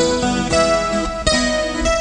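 Background music with plucked guitar notes.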